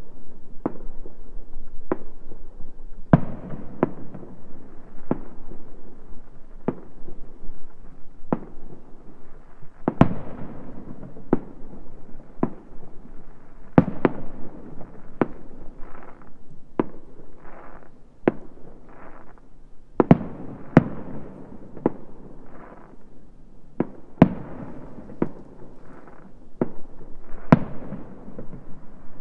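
Distant New Year's fireworks going off across a neighbourhood: irregular echoing bangs about once a second, with a few softer, fuzzier bursts in between.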